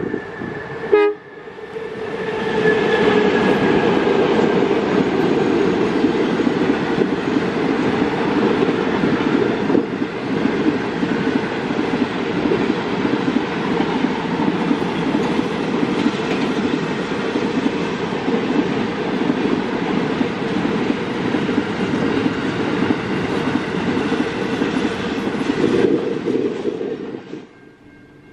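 Diesel-hauled container freight train passing close by, led by the EMD-engined B class streamliner B80 with G515 and X31. A short horn blast comes about a second in, then a loud, steady rumble of locomotive engines, wagons and wheels on rail, which drops away near the end.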